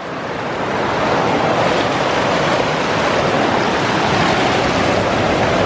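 Steady rushing water of a waterfall close by: an even wash of noise that builds over the first second and then holds level.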